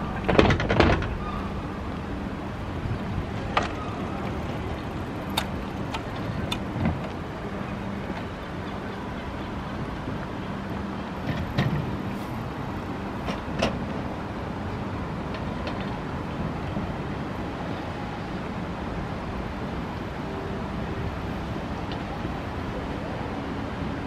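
Outdoor city ambience: a steady background hum with a low drone through the first half, broken by scattered sharp clicks and knocks, the loudest about half a second in.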